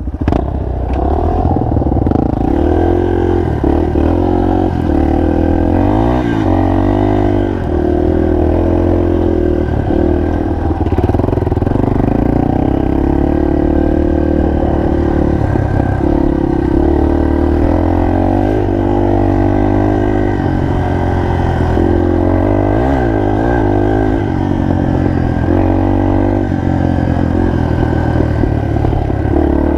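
Single-cylinder four-stroke trail motorcycle engine running steadily under load, its pitch rising and falling a little with the throttle.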